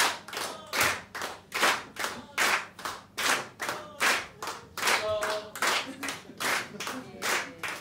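Audience clapping in unison as an encore call, a steady beat of a little over two claps a second, alternating loud and soft.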